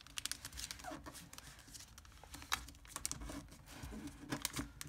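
Thin origami paper rustling and crinkling as it is folded and creased by hand, in irregular small crackles.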